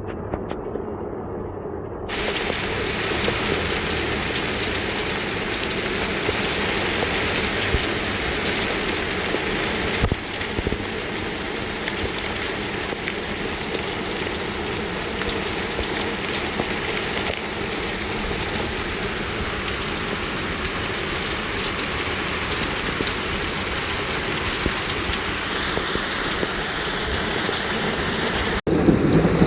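Steady rain falling, an even hiss of drops. It sounds muffled for the first two seconds, and its level shifts abruptly about ten seconds in and again near the end.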